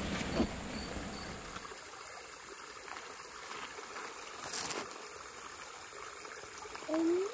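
A creek running steadily, with an insect chirping in a rapid, even rhythm for about the first second. Near the end comes a short call that slides up and then down in pitch.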